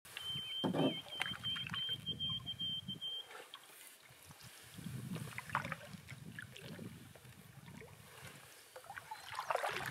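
Water lapping and splashing against a canoe, uneven and low, with small clicks and drips. A thin, high, even-pitched note repeats in short pieces over the first three seconds.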